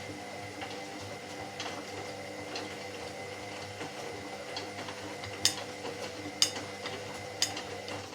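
Washing machine running with a steady motor hum. In the last few seconds, sharp knocks come about once a second.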